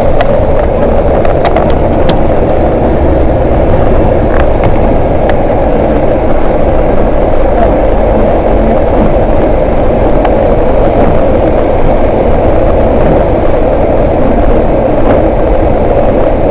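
Steady, loud running noise of a city bus heard from inside: engine and road rumble while driving, with a few faint clicks and rattles.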